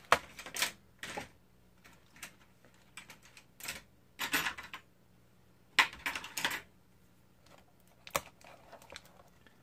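Hands handling a plastic cassette case and its torn wrapper: scattered sharp clicks and taps, with a few brief rustles.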